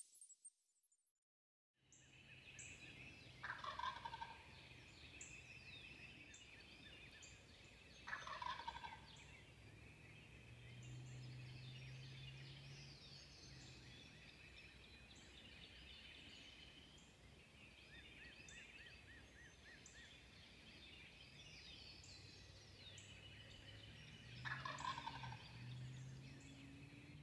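Wild turkey gobbler gobbling faintly three times: about three seconds in, about eight seconds in, and near the end. Songbirds sing continuously underneath.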